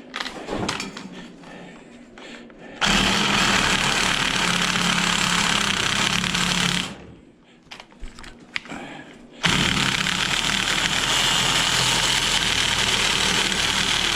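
A power tool cutting scrap metal, run in two long bursts of about four and about six seconds with a short pause between, and lighter handling clatter before the first burst.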